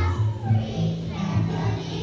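Children's choir singing a holiday song together over instrumental accompaniment with steady bass notes.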